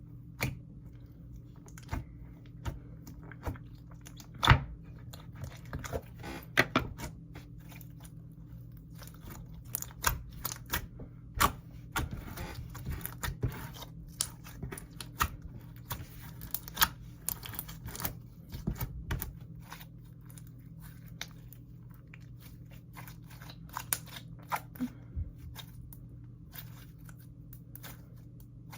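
Thick clear slime being kneaded and mixed with clay by hand, giving irregular sticky clicks and pops, busiest in the middle stretch and thinning out later.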